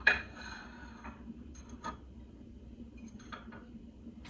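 Porcelain teacup and saucer clinking against a metal tiered stand as they are set on it. One sharp clink rings briefly at the start, then a few faint clicks follow as the pieces are arranged.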